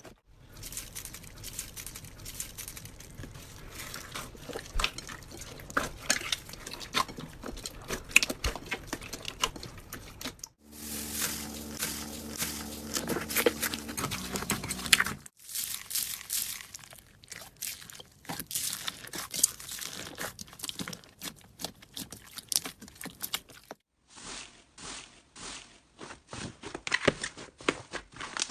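Slime being squeezed, poked and stretched by hand, making dense sticky clicks and crackles. It comes as several short clips cut together, the sound changing abruptly at each cut.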